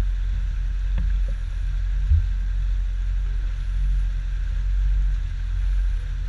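Aluminium fishing boat under way at low speed: a steady low rumble from its outboard motor mixed with wind on the microphone, with one short thump about two seconds in.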